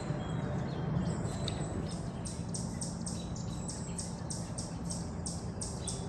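A bird calling in the woods: a quick, even run of short high chirps, about three a second, starting about two seconds in, over a low steady hum.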